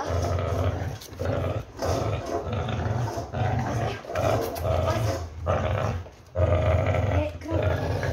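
Pit bull growling through a clenched bite on a tug rope, in a run of bursts about a second apart with short breaks between breaths.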